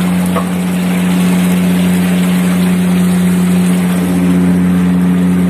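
Ship's machinery giving a steady hum at one low, unchanging pitch.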